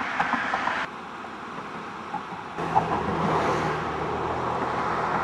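Car driving: steady road and engine noise that drops abruptly about a second in, then comes back louder halfway through with a low engine hum.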